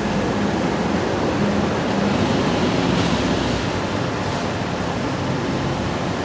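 Steady rushing noise of road traffic with a low engine hum, roughened by wind on the microphone.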